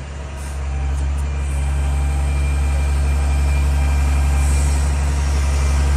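International 4400 bucket truck's diesel engine running steadily with a deep hum, driving the hydraulics of the Terex Hi-Ranger aerial lift as the boom is lowered. A thin, steady high whine sits over the hum.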